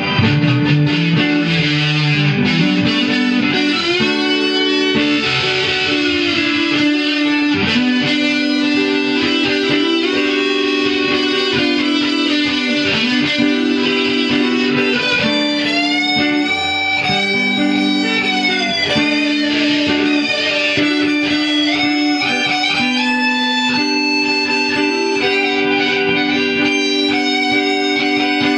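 Fender Mexican-made Stratocaster electric guitar played through effects: a sustained looped chord backing under lead lines, with notes bent up and back down about halfway through.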